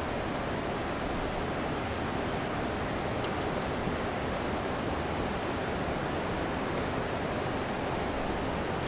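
Steady rushing noise of wind and river water on the microphone of a kayak-mounted action camera, with no distinct events.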